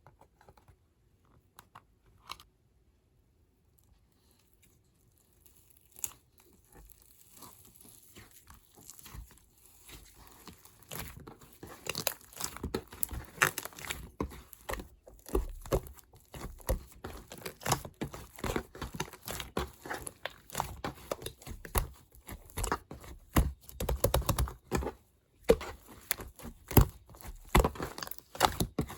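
Crisp crunching and crackling of an apple being bitten and chewed. It starts faintly about six seconds in and grows louder and denser.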